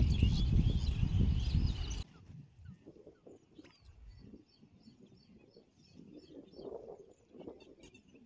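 Wind buffeting the microphone, with birds chirping over it. About two seconds in, the wind noise cuts off suddenly, leaving faint bird calls and soft outdoor sounds.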